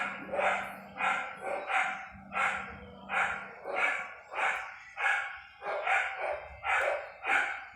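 A dog barking over and over in a steady rhythm, about a dozen barks, one every two-thirds of a second or so.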